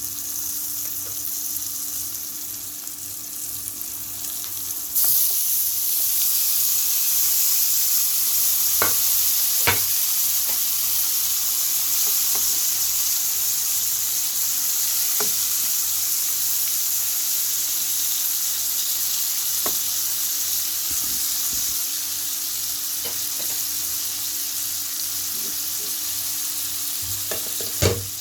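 Halved peppers frying in butter in a pan: a steady sizzle that grows louder about five seconds in, with a few sharp taps from the cooking utensil.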